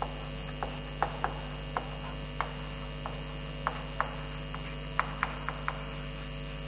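Chalk tapping on a chalkboard while words are written: about a dozen short, irregularly spaced ticks over a steady electrical hum.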